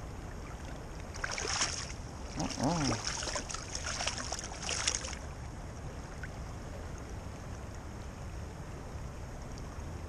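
Steady rush of a flowing creek, with a few seconds of splashing starting about a second in, around a just-landed rainbow trout in the water.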